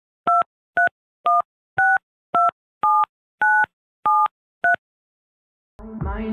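Telephone keypad touch-tones: nine short two-tone beeps about half a second apart, like a phone number being dialled. Music fades in near the end.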